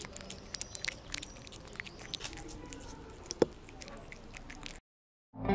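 Cat chewing wet food up close: a run of small, irregular wet clicks and smacks, with one louder click about three and a half seconds in. The sound cuts out shortly before the end.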